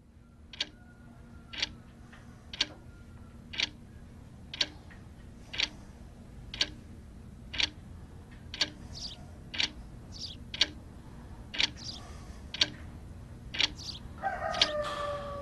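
Clock ticking steadily, one tick a second, over a low steady hum. Near the end a wavering pitched call comes in.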